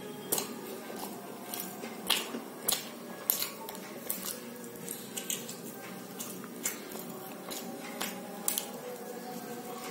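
Close-miked chewing of aloo paratha: wet mouth clicks and smacks at an irregular pace, about one or two a second.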